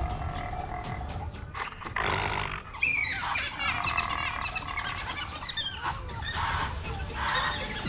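African wild dogs giving many overlapping high-pitched chirping, twittering calls from about three seconds in. A short hoarse burst comes just before them.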